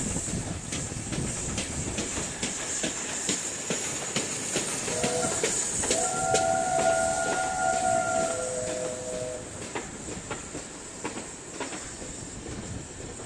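A train of coaches hauled by a GWR 0-6-0 pannier tank steam locomotive rolling past slowly, wheels clicking over the rail joints under a steady hiss. For about four seconds in the middle a long, steady, high whistle-like tone sounds over it.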